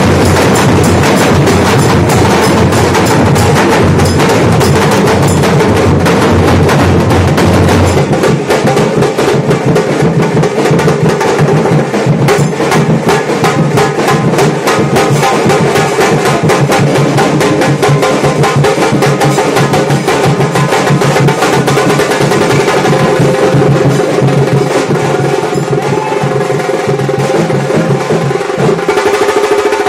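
Nashik dhol drumming: several large dhol drums beaten with sticks in a loud, fast, dense rhythm, with a steady held tone running above the drums.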